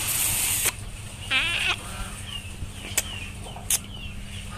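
A chicken gives one short, wavering call about a second in, just after a brief rushing hiss. Small birds chirp over a steady low hum, with two sharp clicks near the end.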